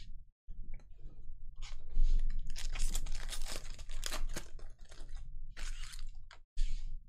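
Foil trading-card pack wrapper being torn open and crinkled by hand, a dense crackling from about a second and a half in to about five seconds, then a couple of shorter crinkles near the end.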